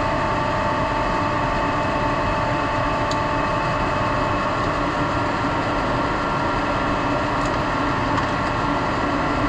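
Steady machinery drone in a printing pressroom, with several constant hum tones held at an even level.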